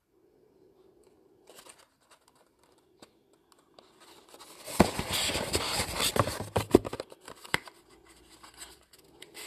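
A small paperboard product box being handled and opened by hand: scraping and crinkling of the cardboard and its flap, loudest for about two seconds around five seconds in, with fainter scratches before and after.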